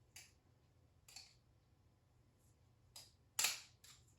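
Balisong (butterfly knife) clicking as its handles and blade swing and knock together while it is flipped open: several sharp clicks spaced irregularly, the loudest about three and a half seconds in.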